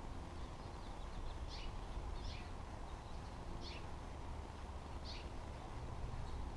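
Black phoebe giving short, sharp chip calls, four clear ones spread irregularly over about four seconds, each a quick downward sweep, over a steady low rumble.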